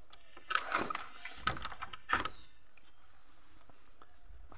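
A wooden pole gate knocking and rattling several times as it is pushed open and walked through, over the first two seconds or so, then a faint steady outdoor background.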